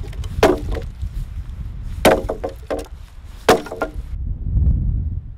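Axe chopping into a log: three sharp strikes about a second and a half apart, over gusty wind rumbling on the microphone. The chopping stops about four seconds in, leaving only the wind.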